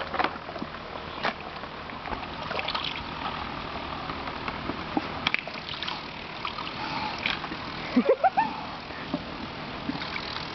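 Rottweiler splashing with its muzzle in a bucket of water as it hunts for fish, with scattered sloshes and a burst of louder splashes about eight seconds in.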